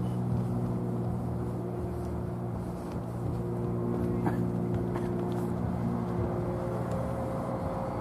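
A steady, low engine drone holding an even pitch, with a few faint clicks over it.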